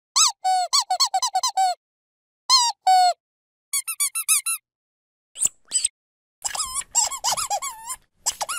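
A dog's squeaky toy squeezed over and over, each squeeze a short pitched squeak that bends in pitch. The squeaks come in quick runs with silent gaps between them: about ten fast ones at first, a higher rapid run in the middle and a dense, overlapping flurry near the end.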